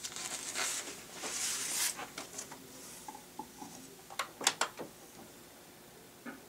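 Paper rustling as a shellac 78 rpm record is handled out of its sleeve, then a few sharp clicks and knocks as it is set on the felt turntable of a Victrola Credenza phonograph and the tonearm is moved.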